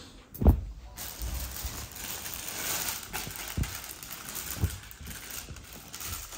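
Fabric and plastic packaging rustling and crinkling as a dress is handled close to the microphone, after a thump about half a second in, with a couple of soft knocks.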